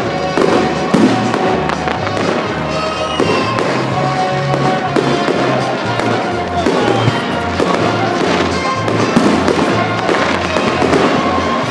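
Fireworks display: aerial shells bursting with repeated bangs and crackle, over loud music with a moving bass line.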